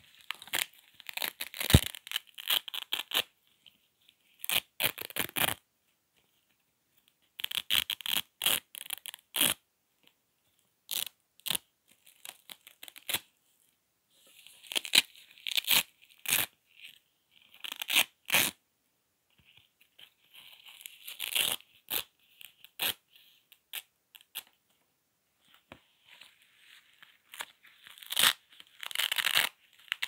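Hook-and-loop (Velcro) tape being pulled apart by hand, a crackling rip made of many small clicks, repeated in bursts of a second or two with short pauses between.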